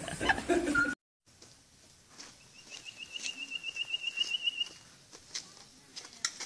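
A voice carries on for about the first second and then cuts off. After a brief silence a bird gives a fast trill of high chirps lasting a couple of seconds, with a few faint clicks and knocks around it.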